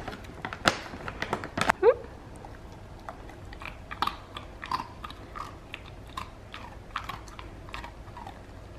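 A dog crunching and chewing a hard oven-baked biscuit treat, with irregular sharp crunches that are loudest in the first two seconds and then come about every half second.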